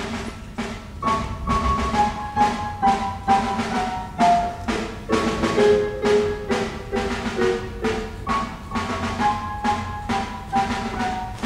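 Instrumental musical-theatre accompaniment with no singing: a steady drum-kit beat of about three strokes a second under a melody of held notes.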